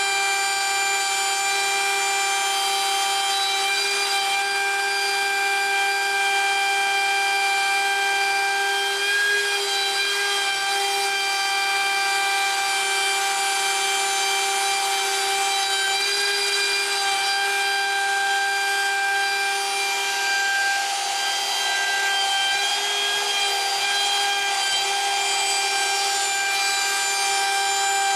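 Rockcliff CNC router's spindle running at a steady high-pitched whine while its bit cuts through cedar, with a continuous cutting noise underneath that holds steady throughout.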